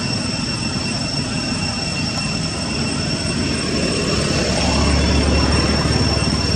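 A steady low rumble that grows louder about four and a half seconds in, with steady high-pitched tones held above it.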